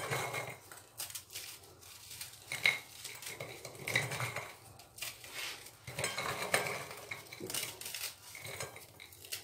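Oreo cookies being broken and crushed by hand over a ceramic plate: irregular small cracks and clicks as the cookies snap and pieces knock against the plate.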